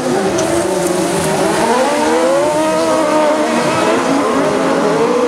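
Several autocross buggies racing past in a pack on a dirt track. Their engines rev up and down as they accelerate and lift, several pitches overlapping.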